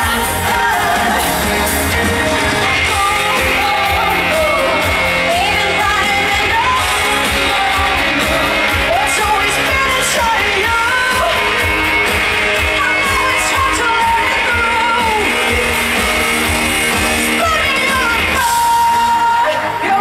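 Live pop concert recorded from within the crowd: a lead vocal sings over a loud band and backing track with heavy bass, and the crowd shouts along. Near the end the voice holds one long note.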